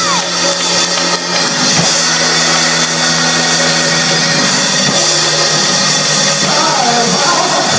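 Loud live church music: sustained, held chords that shift every second or two over a dense, noisy wash.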